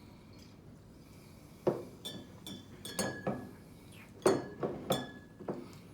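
Glass soda bottles clinking and knocking against each other and the table, a string of about eight sharp clinks with a short glassy ring, starting about a second and a half in.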